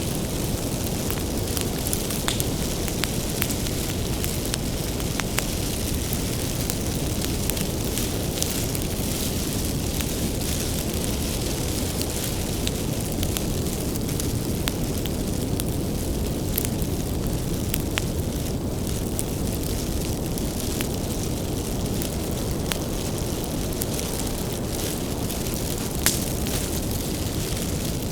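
Bonfire of firewood burning, a steady low rumble of flames with frequent small sharp crackles and pops, one louder pop near the end.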